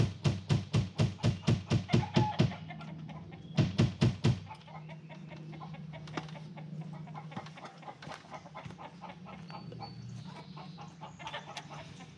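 A fast, even series of knocks on the coop's wooden wall, about five a second, stopping about two and a half seconds in, with one more short run near four seconds. After that, hens cluck softly.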